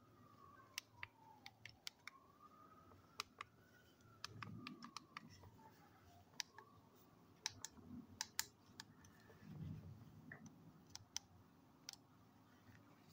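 Soundcore over-ear headphones being handled: scattered faint clicks from their plastic parts and buttons as they are switched on, with a few soft thumps from the handling.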